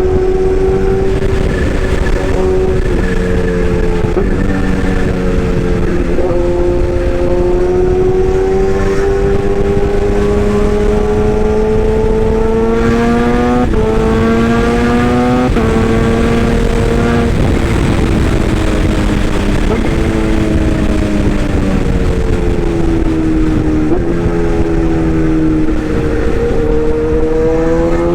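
Excavator running: a steady motor hum whose pitch slowly rises and falls as it works, with a sudden jump in pitch about halfway through.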